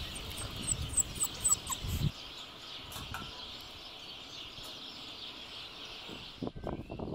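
Outdoor ambience: birds chirping, a few quick falling high notes in the first two seconds, over a steady high hiss with some low rumbling. The hiss stops suddenly about six and a half seconds in, where rustling sounds take over.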